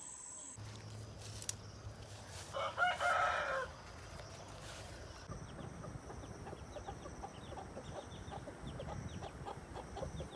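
A rooster crows once, a loud call of about a second, about two and a half seconds in. After that come many short faint calls repeating several times a second over a low steady rumble.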